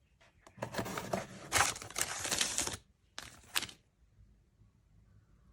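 Packaging rustling and crinkling as it is handled and opened, in a long stretch followed by a shorter burst about three seconds in.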